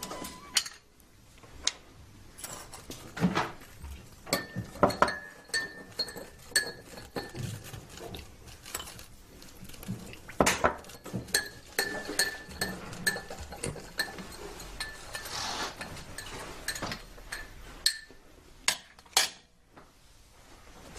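Dishes and cutlery clattering on a kitchen counter: many sharp clinks and knocks of plates, cup and utensils, some ringing briefly, with a short hiss about two-thirds of the way through.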